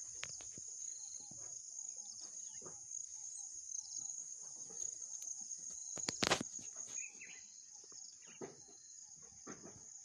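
Steady high-pitched insect chorus. Scattered soft rustles and knocks of movement over the ground, with one sharper, louder knock about six seconds in.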